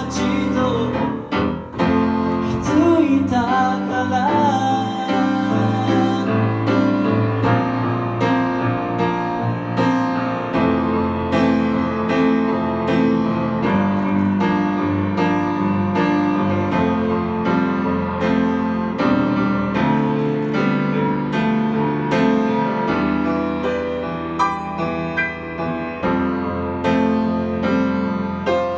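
Grand piano played live, a long instrumental passage of sustained chords and moving notes. A man's singing voice trails off in the first few seconds, leaving the piano alone.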